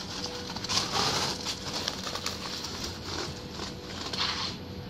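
Interlocking bricks being handled and set dry on a wall: gritty scraping of brick against brick with a few light knocks, loudest about a second in and again near the end.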